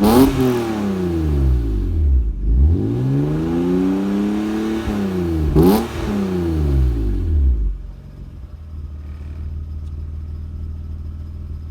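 MINI Cooper's non-turbo four-cylinder engine revved in long sweeps: the revs fall, climb again and fall. It then settles to a steady idle about eight seconds in. Two sharp clicks cut through the revving, one near the start and one about six seconds in.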